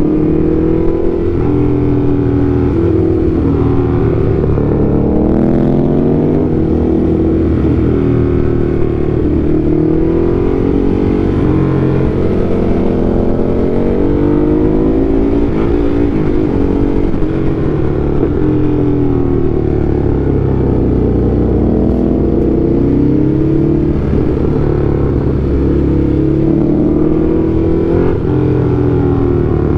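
Ducati Hypermotard's engine running under way, its pitch rising and falling again and again as the throttle is opened and closed through the corners.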